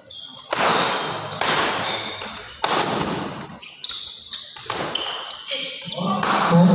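Badminton rally: rackets striking the shuttlecock about once a second, each hit echoing in a large hall, with players' voices, including a shout near the end.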